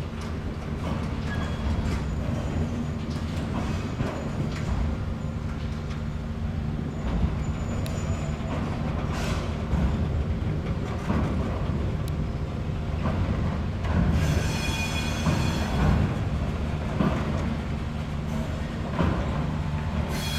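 A train rolls slowly off a train ferry. A locomotive engine drones steadily under scattered knocks of wheels over rail joints, and the wheels squeal briefly about two-thirds of the way through.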